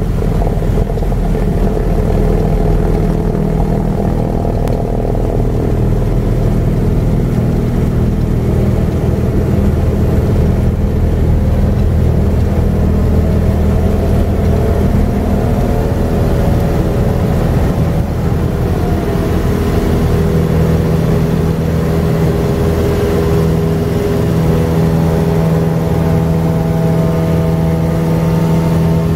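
Light aircraft's piston engine and propeller running at high power, heard from inside the cockpit during the takeoff roll and climb-out. The sound is loud and steady, and its pitch shifts slightly about twenty seconds in.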